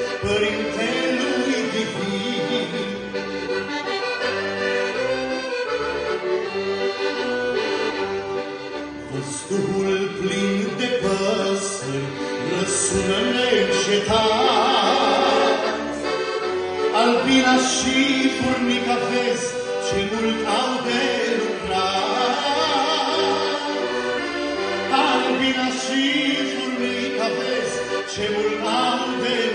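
A man singing a Romanian Christian song, accompanying himself on a piano accordion. Held sung notes waver in a vibrato over the accordion's steady chords.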